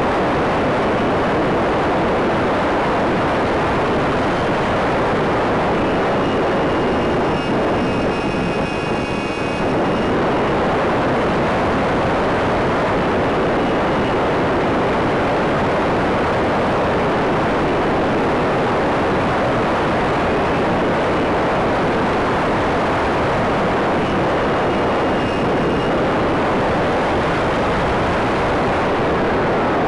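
Steady rush of wind and electric motor and propeller noise, picked up on board a Stryker RC flying wing in flight. A faint high whine comes in for a few seconds about a quarter of the way through, and again briefly later on.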